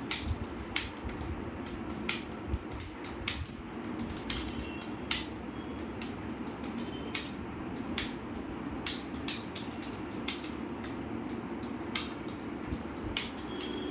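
Computer keyboard keys being pressed one at a time at an irregular, unhurried pace, during a Hindi typing test, over a steady low hum.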